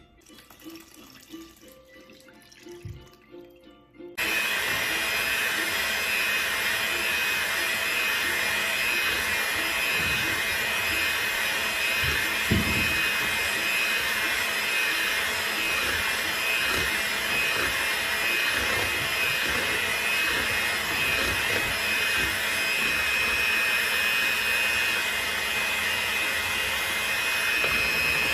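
Electric hand mixer switched on about four seconds in and running steadily, its beaters whirring through cake batter in a bowl with a steady high motor whine. There is one brief knock partway through.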